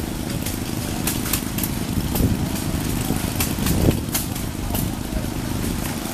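An engine running steadily, with sharp pops at irregular intervals, about one or two a second.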